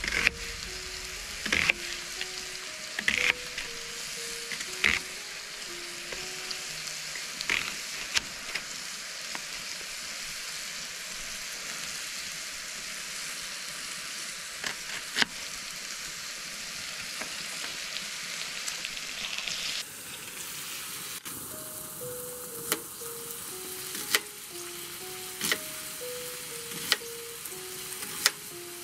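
Food frying and sizzling steadily in a pan, with sharp clicks and knocks every second or two as a utensil stirs it. Faint background music runs underneath.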